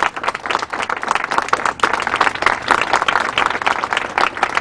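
A crowd applauding and clapping, a dense, steady crackle of many hands.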